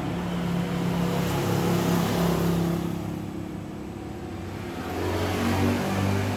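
A motor vehicle engine running, its pitch falling and then rising again a couple of seconds later.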